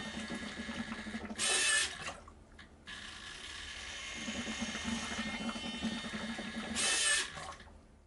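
High-torque RC servo of a DIY ventilator whirring as it works the push-pull rod against the breathing bag, with a short, louder rushing burst about a second and a half in and again about seven seconds in, the first followed by a brief lull: the machine cycling through two breaths.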